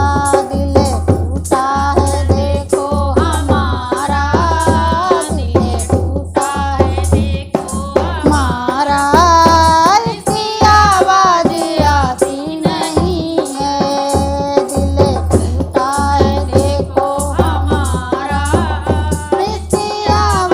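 A Hindi devotional bhajan to Krishna, sung as a solo melody in long, ornamented phrases over drum accompaniment with a steady, pulsing low bass beat.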